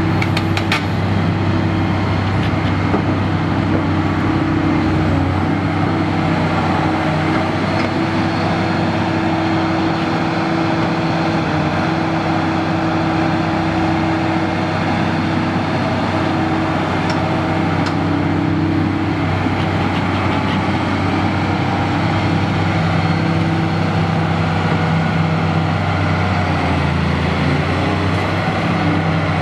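Komatsu SA6D125E-2 six-cylinder turbo diesel of a 1999 Komatsu PC400LC-6LK excavator running steadily. The engine note shifts a few times as the boom and arm are worked, and there are a few short clicks about a second in.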